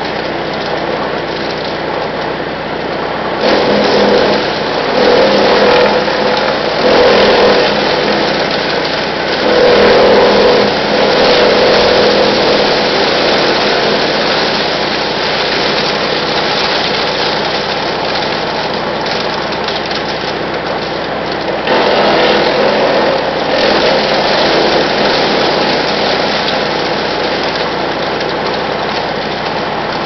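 Brush Master 3-inch wood chipper running steadily on its gas engine, with loud spells of chipping as branches are fed into the side chute: several surges from about four to thirteen seconds in, and another from about twenty-two to twenty-five seconds in.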